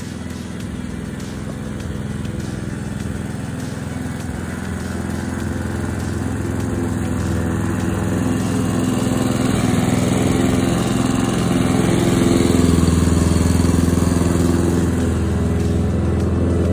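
Mountfield SP535 HW lawn mower's Honda engine running steadily while mowing, growing louder as the mower comes toward and past.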